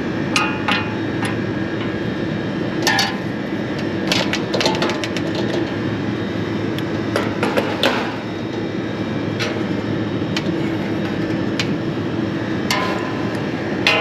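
Irregular metallic clicks and clanks of a wrench and hands on an air-conditioner condenser's sheet-metal fan guard and fan motor bracket, over a steady mechanical hum.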